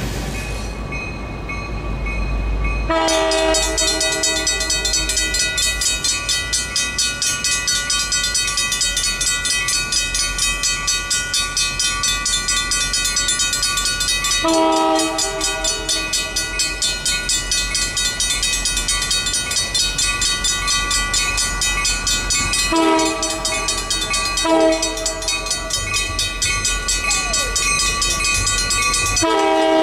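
Mechanical railroad crossing bell ringing with rapid, even strokes, starting about three seconds in. Over it an approaching train's horn blows in long and short blasts: a long one as the bell starts, another near the middle, then a short and a long one close together, and one more at the end.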